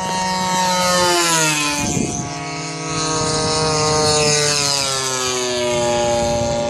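Propeller engines of two radio-controlled warbird models, an A6M Zero and an F6F Hellcat, passing low overhead. The engine drone drops in pitch as one plane goes by about a second in, and a second drop follows as another passes from about four to six seconds in.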